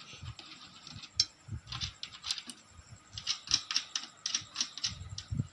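Light, irregular metallic clicks and taps of a hand tool on the nuts of a table fan's motor housing as they are loosened, coming more thickly in the second half.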